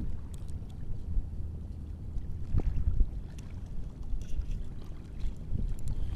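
Wind rumbling on the microphone, a steady low buffeting, with a few faint clicks and a couple of louder knocks near the middle.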